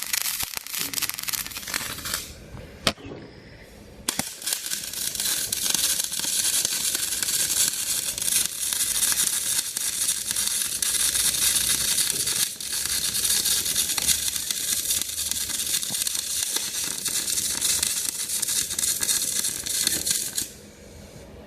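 Electric arc welding: the arc crackles and hisses in a short burn of about two seconds, then after a sharp click and a pause it runs steadily for about sixteen seconds and cuts off suddenly near the end.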